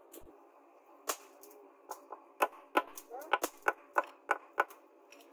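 Hammer blows driving a metal ferrule onto the end of a wooden tool handle. There are a few scattered knocks, then a steady run of about three strikes a second from about two seconds in.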